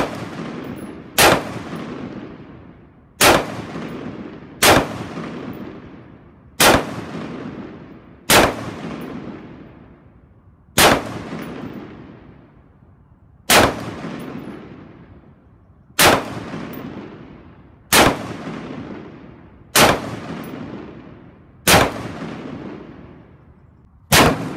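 Caracal CAR816 A2 5.56 mm rifle firing single shots at a slow, steady pace, about one every two seconds, thirteen in all. Each shot is followed by a long echo that dies away before the next.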